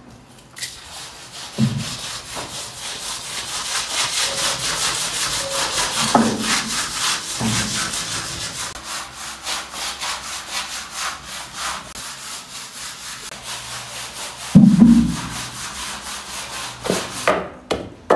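A stiff brush scrubbing a wet, soapy tiled floor in quick, even back-and-forth strokes, with a few dull thumps, the loudest about fifteen seconds in. Near the end, sharp knocks from a pestle pounding in a mortar take over.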